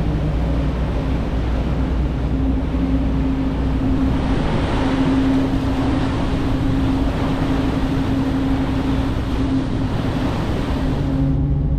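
Ferry under way: a steady engine drone and hum over a rush of water and wind. Near the end the sound changes abruptly, with the hiss falling away.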